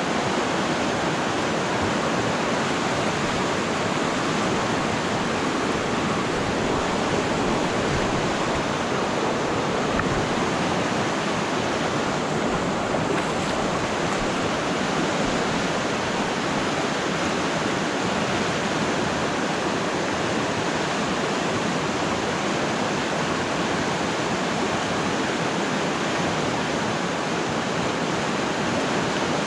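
River water rushing steadily, a continuous even roar of flowing current.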